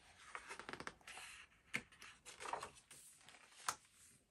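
Pages of a picture book being turned by hand: faint paper rustling with a few light taps and clicks, two sharper ones partway through and near the end.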